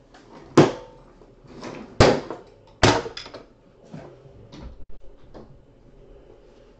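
Three sharp knocks about a second apart, each ringing briefly, followed by several fainter clicks.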